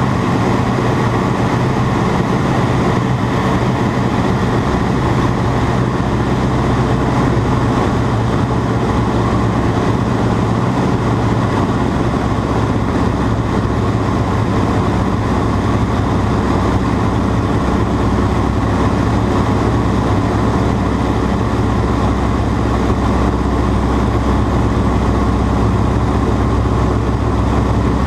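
Ag-Cat agricultural biplane's engine running steadily at a constant, loud drone, with no change in speed.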